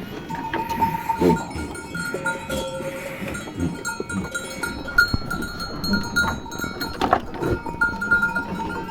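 Bells on a flock of sheep clanking and ringing as the animals move, with a few bleats.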